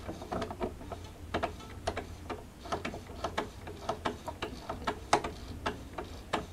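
Jaguar 592 portable sewing machine's mechanism turned slowly by hand while its rotary bobbin hook is oiled, giving irregular light clicks, a few a second.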